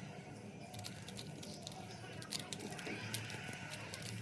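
Faint, irregular clicking of a Rubik's Cube's plastic layers being turned by hand.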